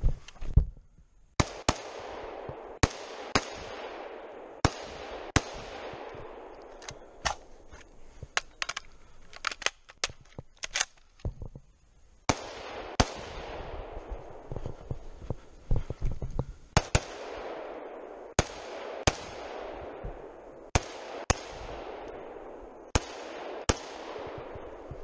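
Rifle shots from a semi-automatic .308 rifle, fired mostly in quick pairs. Each shot is a sharp crack followed by about a second of echo ringing off the forest. A pause of about six seconds in the middle holds only quieter clicks.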